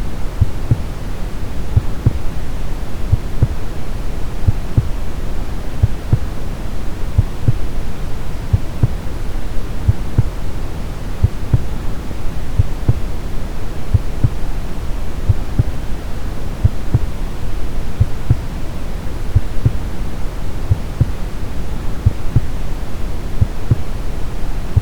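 Brown noise, a steady deep hiss, layered with a heartbeat sound: soft low beats repeating at an even pace.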